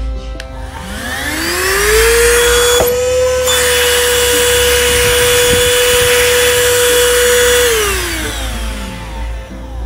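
IUIGA handheld cordless mini vacuum cleaner's motor switched on about a second in, its whine rising to a steady pitch. It runs for about six seconds, then winds down and stops near the end. The hose is fitted to the exhaust outlet, so it is blowing air rather than sucking.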